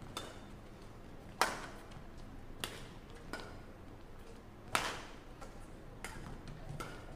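Badminton rackets hitting a shuttlecock in a rally: a series of sharp hits about a second apart, the loudest about a second and a half in and near five seconds in.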